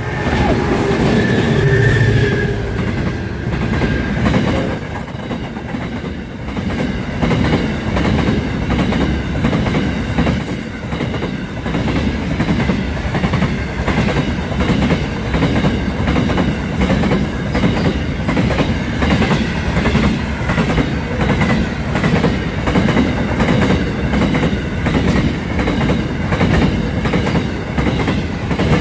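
An empty grain train passing close by: the diesel locomotive goes past with a heavy low rumble in the first few seconds, then a long line of empty grain hopper wagons rolls by with a steady clickety-clack of wheels over rail joints.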